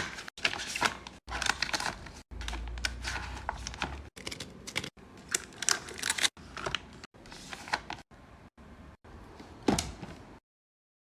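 Plastic skincare bottles, jars and tubes clicking and clattering as they are handled and set in place, in short clips spliced together. The sound cuts off abruptly near the end.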